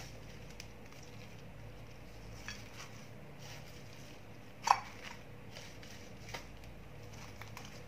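Hands arranging wet lettuce leaves on a plate: soft small taps and rustles, with one sharp clink of the plate a little past halfway, over a low steady hum.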